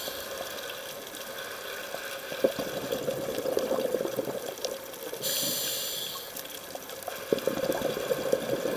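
Scuba regulator breathing heard underwater. There is a short hissing inhale right at the start and another about five seconds in, and each is followed by a couple of seconds of bubbling exhaled air.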